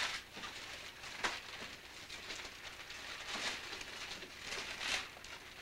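Wrapping paper and gift boxes rustling and crinkling in irregular bursts as presents are handled.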